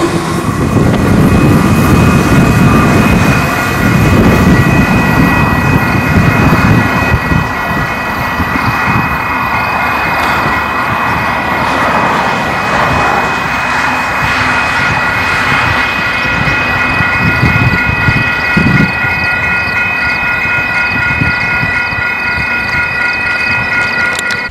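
Railroad grade-crossing bell ringing steadily while the crossing lights flash, over a heavy low rumble and buffeting from the freight train that has just passed and is pulling away. Both stop abruptly at the end.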